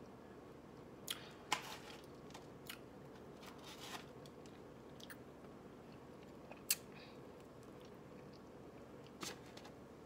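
Quiet eating sounds from a forkful of soft lemon Kool-Aid pie: a scattering of short clicks and smacks from chewing, lips and fork. A faint steady hum runs underneath.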